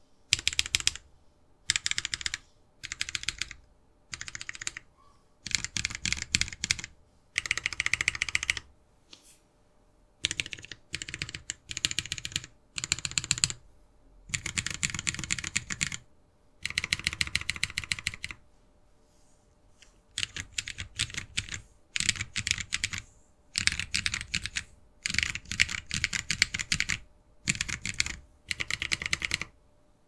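Typing on a Lily58 Pro split mechanical keyboard with lubed Holy Panda tactile switches, an acrylic plate and case, and ABS DSA keycaps. Quick keystrokes come in short bursts with brief pauses between.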